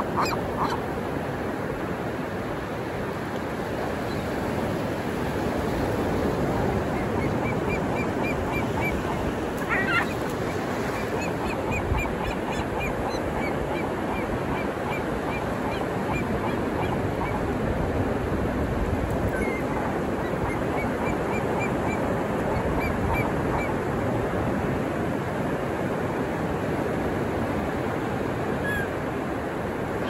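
Ocean surf breaking and washing steadily, with gulls calling over it in several runs of short repeated notes and one louder call about ten seconds in.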